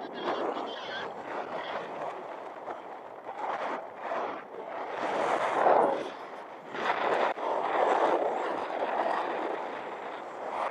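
Wind rushing over a roof-mounted camera on a moving SUV, swelling and fading in irregular gusts, over the vehicle's road noise on a sandy track.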